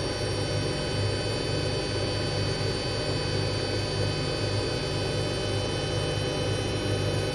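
Hotpoint Aquarius WMA33 washing machine running, a steady motor hum with a high whine over a low drone that pulses unevenly.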